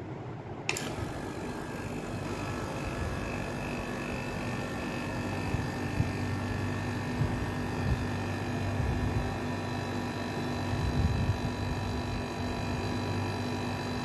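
Window air-conditioner compressor, wired through a potential relay with start and run capacitors, switching on with a sharp click about a second in and then running steadily with a hum and a high whine.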